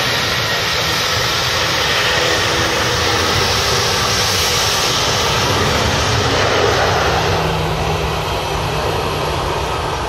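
Boeing 757's twin jet engines at takeoff power as it rolls, lifts off and climbs away. The loud, steady roar peaks about six or seven seconds in, then loses its hiss and begins to fade as the aircraft climbs out.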